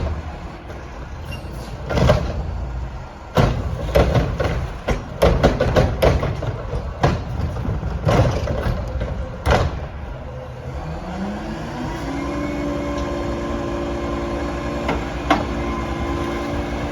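Garbage truck at work: a run of loud metal clanks and bangs for about ten seconds, then its engine speeds up with a rising tone and holds steady at the higher speed.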